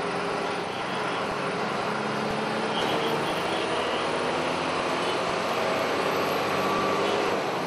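A BRTS city bus driving along steadily, its engine running under a steady hum of road noise, heard from on board.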